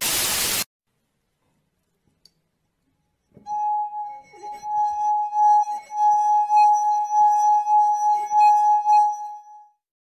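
A short loud burst of noise cuts off right at the start, followed by silence. From about three and a half seconds in, a single steady ringing tone is held for about six seconds, its loudness swelling and dipping, and it stops near the end.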